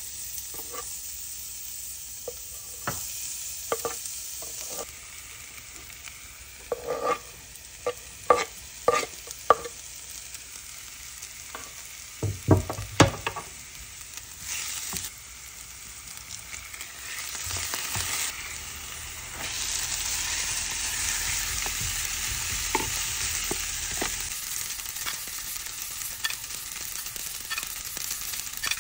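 Food frying and sizzling in a pan while it is stirred, a utensil clinking and knocking against the pan several times in the first half. The sizzle gets louder in the second half.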